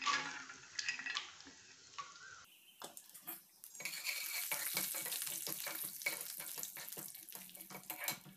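Peanuts frying in hot oil in an aluminium pressure-cooker pan, a steady sizzling hiss from about four seconds in, while a metal spatula scrapes and clicks against the pan. Near the start, the peanuts drop into the pan with a few light clicks.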